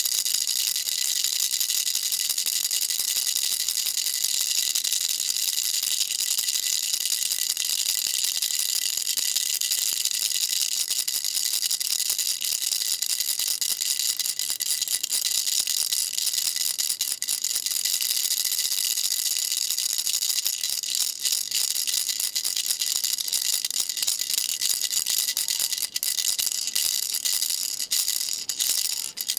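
Baby rattle shaken continuously, a dense high-pitched rattling of small beads inside, breaking into separate shakes near the end.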